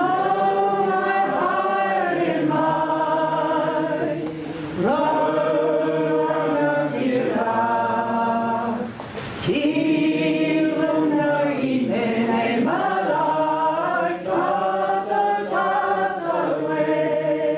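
A group of voices singing a waiata together unaccompanied, in long held phrases with brief breaks for breath between them.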